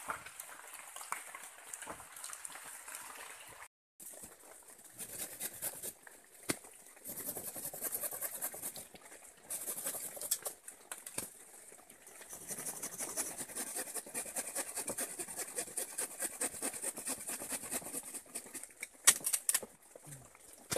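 Wooden poles knocking and rustling as they are handled and climbed on, with scattered sharp knocks, the loudest near the end, over a steady high hiss.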